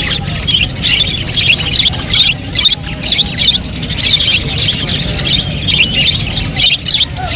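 A dense chorus of many caged birds chirping and calling at once, non-stop and overlapping, over a low steady rumble.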